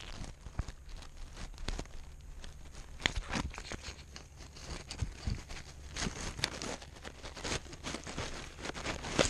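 Dry grass crackling and the cat's fur rubbing against a collar-mounted GoPro as the cat noses through dead grass, with irregular small clicks and scrapes and a few louder knocks.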